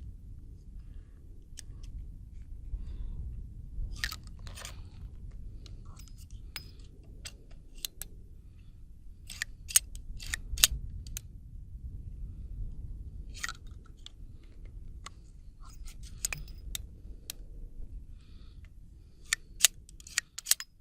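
Scattered sharp metallic clicks and small clatters from handling an old-model Ruger Vaquero single-action revolver between strings of fire: the cylinder is turned click by click at the loading gate and spent .45 Colt cases are punched out. The clicks come in small groups, thickest about halfway through and again near the end, over a low steady rumble.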